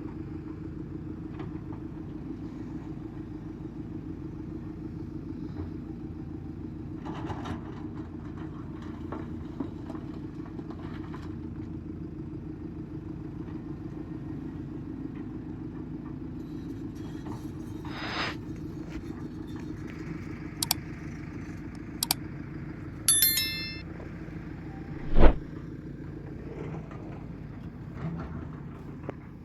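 Diesel engine of an earthmoving machine (backhoe loader or excavator) running steadily, with a few sharp knocks and clanks in the second half, the loudest near the end.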